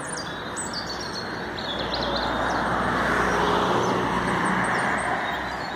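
A car passing by, its engine and tyre noise swelling to a peak about halfway through and fading again. A few faint bird chirps near the start.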